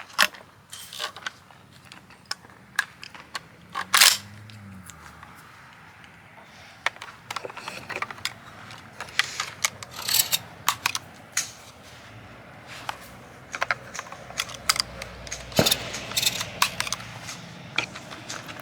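Irregular small clicks and clacks of hard objects being handled, typical of shotgun shells being sorted and loaded. One sharper, louder knock comes about four seconds in.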